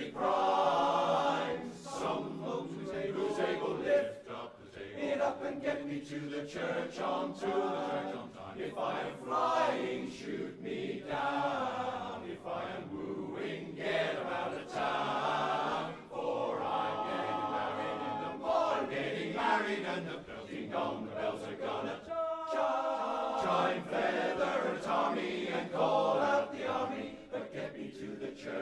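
Men's barbershop chorus singing a cappella in close harmony, many voices holding and changing chords together.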